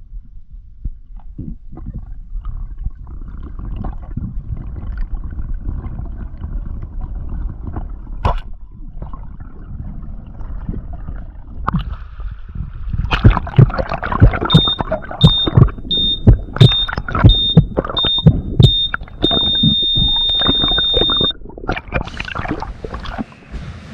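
Low steady rumbling, then loud irregular knocks, over which a high electronic beep repeats about twice a second and then holds as one steady tone for about two seconds before cutting off.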